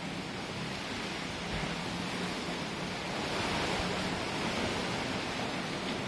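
Rain and strong wind: a steady rushing noise that swells a little a few seconds in.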